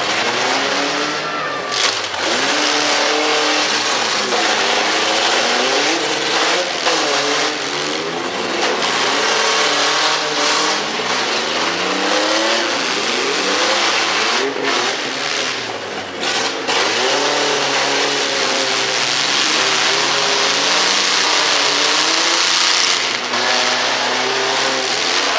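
Engines of several demolition-derby mini pickup trucks revving hard at once, their pitches rising and falling again and again as they drive and ram into each other.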